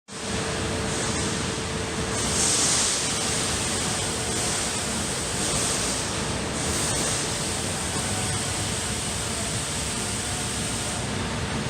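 Amada LCG 3015 CNC laser cutter running: a steady machine hiss and hum with a faint constant tone. A brighter, higher hiss swells up several times for about a second each during the first half.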